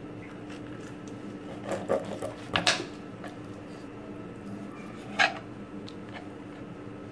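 Kitchen knife scraping and tapping on a plastic cutting board while cutting a fish: a cluster of short sharp scrapes about two seconds in and one more about five seconds in, over a steady low hum.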